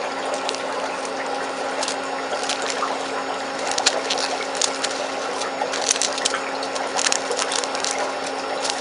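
Small clear plastic bags of nail spangles being handled, giving scattered crinkles and light clicks, thickest in the second half, over a steady background hum and hiss.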